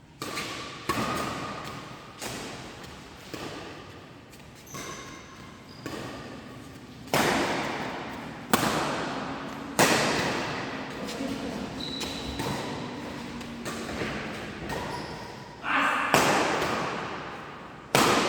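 Badminton being played in an echoing sports hall: a string of sharp hits and thuds, several of them loud, each ringing on in the hall's reverberation, with voices in the background.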